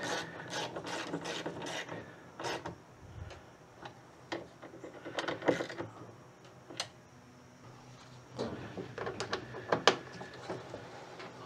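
Quarter-inch socket ratchet clicking as it tightens the small bolts of a VW Beetle window regulator. A quick run of clicks comes first, then scattered single clicks, and another cluster of clicks and knocks near the end.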